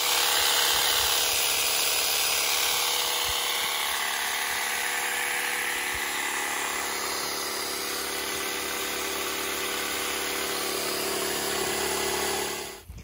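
Makita DUN501WZ 18 V brushless pole hedge trimmer running steadily, its motor and blades going with no let-up, then cutting off shortly before the end.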